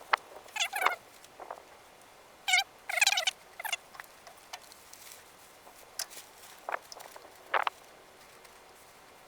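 Short, high, chattering animal calls in quick bursts, most of them in the first four seconds, then a few sharp chirps spread out after.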